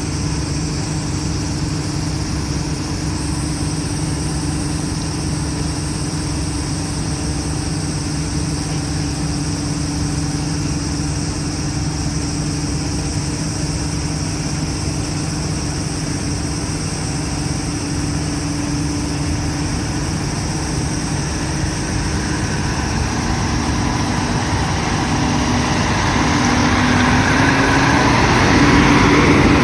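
JNR KiHa 52 and KiHa 28 diesel railcars' DMH17 diesel engines idling steadily, then, about two-thirds of the way through, throttling up and growing steadily louder as the railcars pull away.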